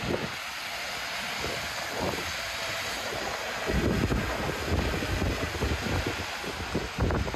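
Wind buffeting the microphone in irregular low rumbles, heaviest in the second half, over a steady hiss of rain and city street traffic.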